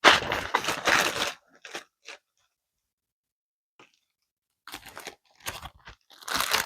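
Plastic packaging crinkling and rustling as it is handled: a loud stretch of crackling in the first second or so, a few scattered crackles, then more rustling near the end.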